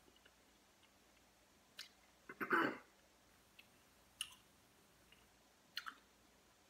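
Mouth sounds of a person tasting sauce off a spoon: a few short wet clicks and lip smacks, with one louder, longer mouth sound about two and a half seconds in.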